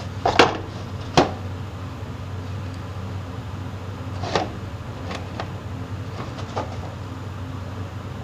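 Steel taps and dies and 3D-printed plastic trays being set into a metal assortment box: scattered short clacks and knocks, the sharpest in the first second and a few more in the middle. A steady low hum runs underneath.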